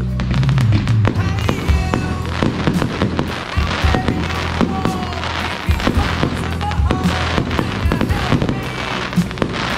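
Fireworks display going off in quick succession: rapid bangs and dense crackling from bursting shells and rising comets. Music plays underneath with a steady bass line.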